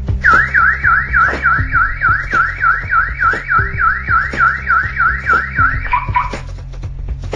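Car alarm siren sounding a fast series of falling sweeps, about four a second, for nearly six seconds, ending on a brief lower tone before it stops. Background music runs underneath.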